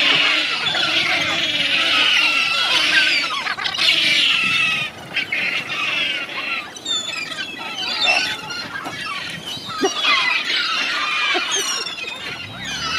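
A flock of gulls calling continuously, many shrill cries overlapping at once, the chorus thinning for a moment about halfway through.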